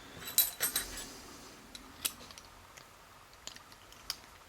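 Small metallic clicks and clinks from handling a brass padlock and its tools as it is taken apart: a quick cluster of clinks about half a second in, then a few single ticks.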